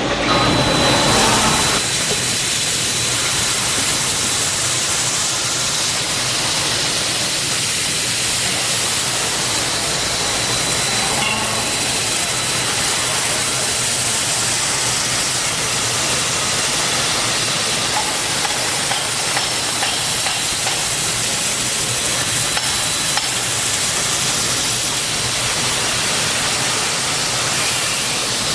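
Kotec Newrun-7DX CNC multi-beam drilling machine running: a steady hissing noise with a faint low hum underneath, a little louder in the first second or two.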